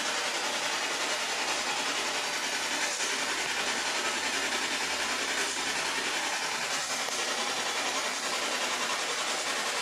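Steady rushing, hiss-like noise at an even level, with no distinct events.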